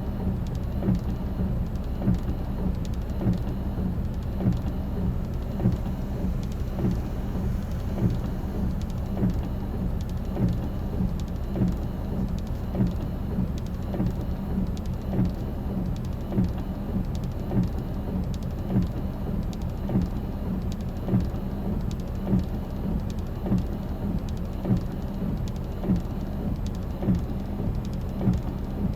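Strong wind buffeting the microphone at the shore, a steady low rumble with short thumps about once a second, over the noise of the surf.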